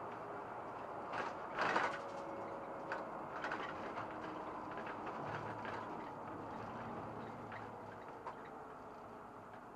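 Cab interior of a SOR NB 12 city bus on the move: a steady engine and road hum with scattered clicks and rattles, a louder rattle just under two seconds in.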